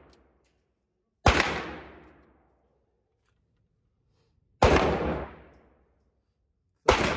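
Three 9mm pistol shots from an FMK 9C1 Gen 2, spaced unevenly: about a second in, about four and a half seconds in, and right at the end. Each shot is sharp and is followed by about a second of echo off the walls of the indoor range.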